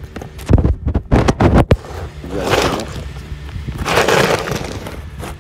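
Handling noise from a phone camera being picked up and set down on a wooden plank. A cluster of heavy bumps comes in the first two seconds, then two longer rubbing rushes against the microphone.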